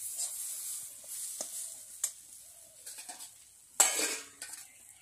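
A metal spatula stirring and scraping vegetables around a metal wok, with a steady frying sizzle and sharp clicks of metal on metal. There is a brief, louder clatter about four seconds in.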